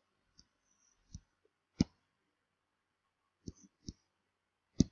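Computer mouse clicks: about six short, sharp clicks at irregular intervals on near silence, the loudest about two seconds in and at the very end.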